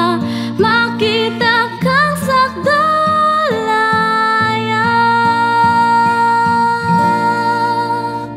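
Female solo voice singing with vibrato over plucked acoustic guitar, settling about halfway in on one long held note.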